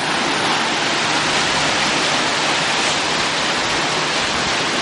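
Floodwater rushing and churning in a swollen creek: a steady, loud wash of turbulent water.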